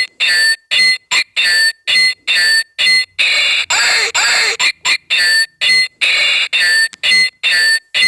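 Pixel sword toy's electronic sound effect triggered over and over: short, loud bursts of beeping tones and noise, each cut off abruptly after a fraction of a second, about two a second.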